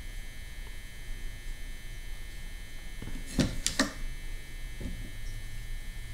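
Steady electrical hum, with a quick pair of sharp handling clicks about three and a half seconds in and a fainter one a second later.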